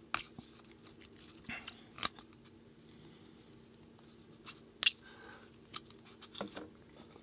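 Close-miked chewing: scattered wet mouth clicks and a few short crunches, about half a dozen spread out, over a faint steady hum.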